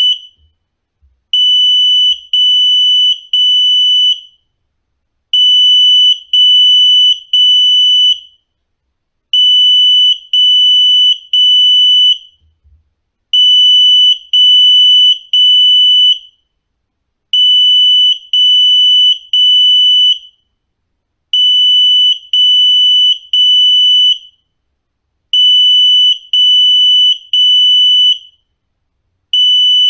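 Smoke-type residential fire alarm sounding in alarm during an activation test: loud, high beeps in groups of three, each just under a second long, then a short pause, repeating about every four seconds.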